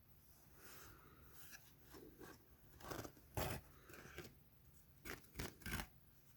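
Toy parts being handled and pried apart by hand: faint scraping and rustling, with about five sharp clicks and snaps, the loudest in the middle and a quick run of three near the end.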